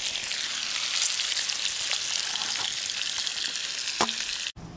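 Bacon sizzling in a frying pan over a small wood fire: a steady hiss with scattered small pops. It cuts off suddenly shortly before the end.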